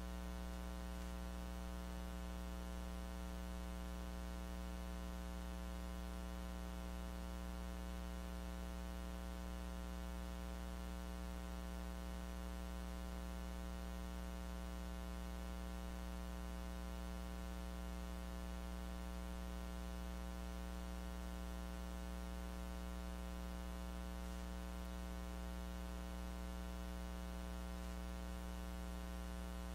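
Steady electrical mains hum with a hiss of static, unchanging throughout: a recording line carrying only interference, with the lecture's own sound missing.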